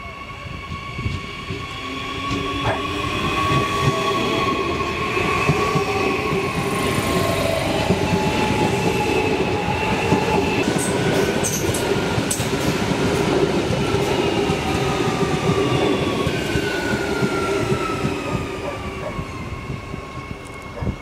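Adelaide Metro 4000-class Bombardier electric railcar pulling into the station and passing close by, its rumble swelling and then easing as it brakes to a stop. Several whining tones slide slowly down in pitch as it slows.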